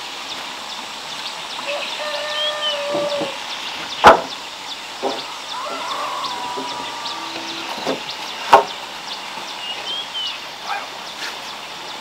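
Wooden beams knocking: two sharp, loud wooden knocks about four seconds apart and a few lighter ones as planed timber beams are stood upright and lifted. Farm fowl call in drawn-out notes and small birds chirp in the background.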